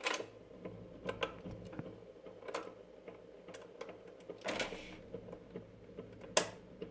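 RCA Victor VC181 record changer cycling: a steady motor hum under irregular mechanical clicks and knocks, with a longer clatter about four and a half seconds in. It is the changer's fault at work: the records drop correctly, but the tone arm never comes down onto the record.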